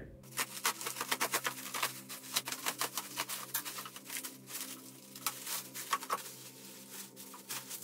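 Plastic stretch wrap being torn and pulled off by hand, crackling in a rapid, uneven run of sharp crackles over a faint steady low hum.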